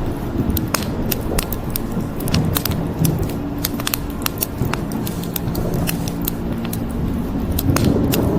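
Wood fire crackling, with frequent sharp pops over a low steady rumble that grows louder near the end.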